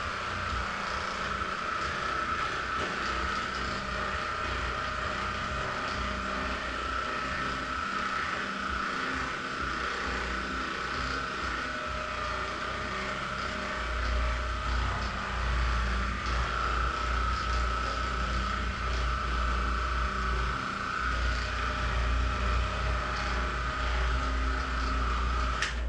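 A small motor running with a steady whine over a hiss; a low, fluttering rumble joins about halfway through and carries on.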